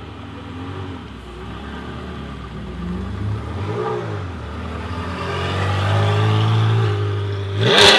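Car engine running and being revved: a quick rise-and-fall blip about four seconds in, then it grows louder and ends in a sharp, loud rev just before the end.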